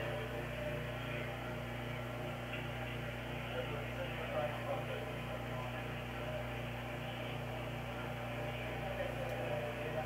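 Steady electrical hum with a faint murmur of background voices over an open telephone line while the call is on hold.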